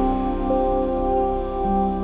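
Background music: long held, sustained notes that change pitch about half a second in and again near the end.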